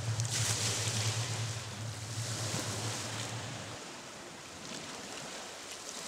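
Sea waves breaking and washing over rocks, surging loudest about half a second in and again about two seconds in. A low steady hum underneath stops suddenly a little past halfway.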